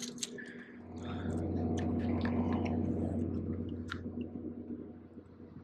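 A low motor drone, an unseen engine, that swells from about a second in and fades away near the end. Scattered light clicks and rustles of the camera being handled.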